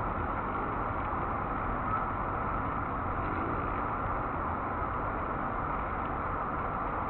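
Honeybees buzzing at a hive entrance: a steady hum, with faint brief tones from single bees flying past.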